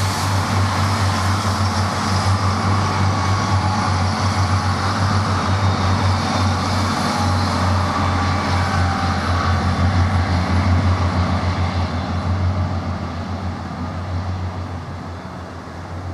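Train running past: a loud, steady low rumble with rail and wheel noise that fades away over the last few seconds.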